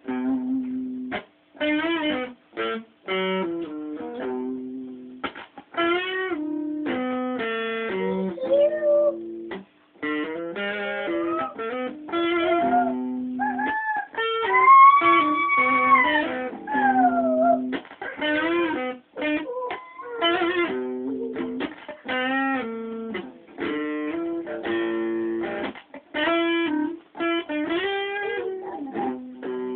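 Solo guitar playing a blues in short phrases of picked notes with brief stops. About halfway through, a long note is bent up, held, then slides down.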